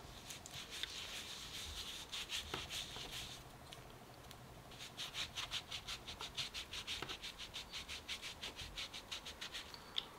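A hand being wiped clean of lipstick swatches with a tissue: quick, faint rubbing strokes in two spells, with a short pause a little before the middle.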